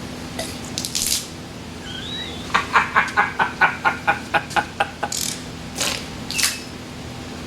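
Hand ratchet wrench clicking in a quick even run of about a dozen clicks in the middle, with a brief squeak just before and a few scattered tool knocks afterwards, during hand-tool work on an AMC 304 V8.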